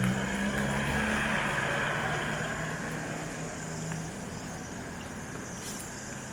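A motor vehicle driving past, its engine and tyre noise loudest in the first couple of seconds and then fading away.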